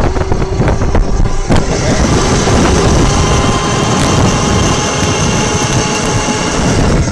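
Homemade alternator-motor electric bike riding along the road: a faint steady motor whine under loud rushing wind and handling noise on the phone's microphone.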